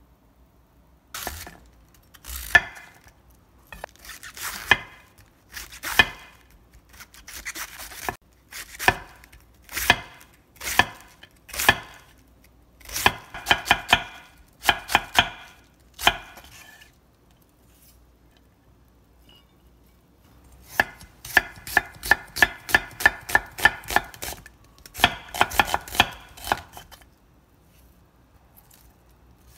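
A chef's knife cuts through vegetables onto a wooden cutting board. First come single strokes and short quick clusters as cabbage is shredded. After a pause of a few seconds comes a faster, steady run of cuts, several a second, as an onion is sliced into strips.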